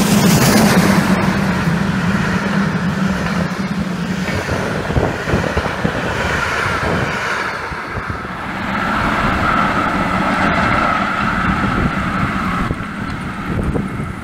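Class 01 steam locomotive 01 202 and its coaches rushing past at speed, loudest as the engine goes by, followed by the steady rolling of the train as it draws away. The sound changes abruptly near the end.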